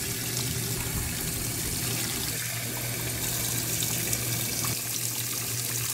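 Water running steadily from a tap, an even, unbroken rushing hiss.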